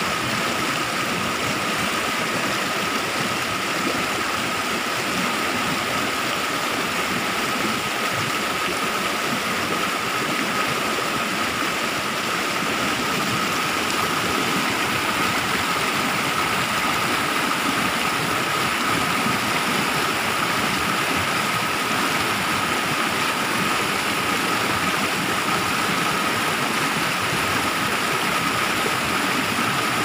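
Rushing water of a rocky stream and its small waterfalls, a steady even noise with a thin steady high tone over it.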